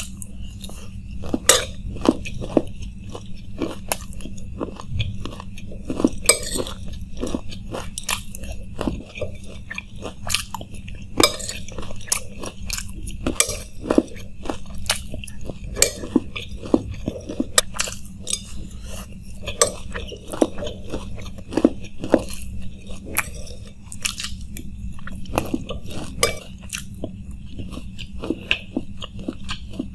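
Close-miked crunching and chewing of chanachur makhani, a crisp fried snack mix with onion and chilli, eaten by the spoonful, with many sharp irregular crunches. Now and then a metal spoon scrapes and clinks on a ceramic plate.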